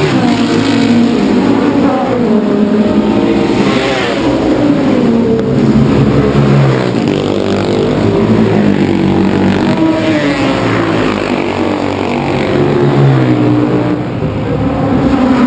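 Racing motorcycles on a street circuit, loud and continuous, several engines at once rising and falling in pitch over and over as they accelerate and change gear past the spectators.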